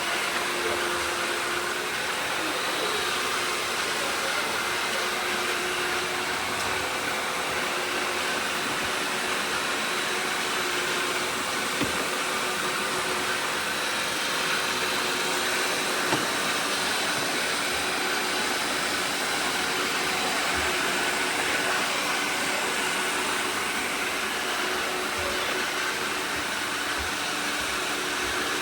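Several robot vacuums running at once: a steady whir of motors and suction fans, with a few faint knocks as they bump into things.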